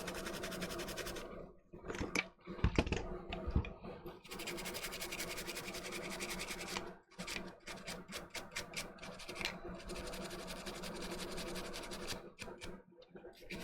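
Toothbrush scrubbing isopropyl alcohol over a game controller's circuit board to clean the freshly soldered stick joints: quick, rapid bristle strokes in several spells with short pauses between, and a few knocks about two to three seconds in.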